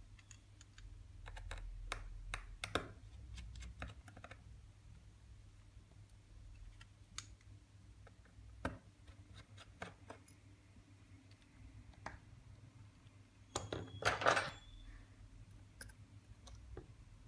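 Faint scattered clicks and light scrapes of a precision screwdriver and tiny screws on the iPhone 6S's metal display-connector cover plate, with a brief louder metallic clatter about fourteen seconds in.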